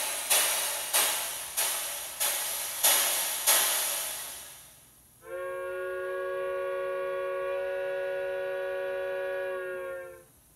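Steam locomotive sound: six regular exhaust chuffs, about one every 0.6 seconds, that fade out about four seconds in. After a short pause comes a long steam whistle of several tones at once, held steady for about five seconds and stopping shortly before the end.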